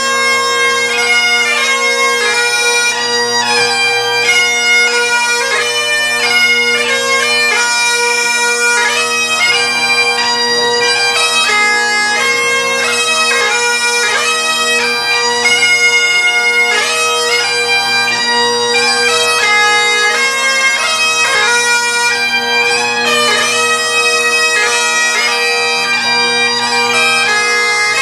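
Bagpipes playing a fast-noted melody on the chanter over steady, unbroken drones.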